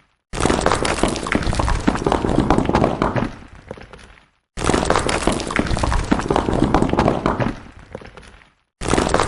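Stones falling and clattering: a sudden rush of many hard knocks that thins out and dies away over about four seconds. It repeats twice, with a third rush starting near the end.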